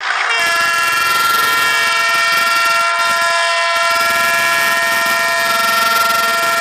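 A WAP-1 electric locomotive's air horn sounding one long, unbroken blast. Its several tones sound together as a chord.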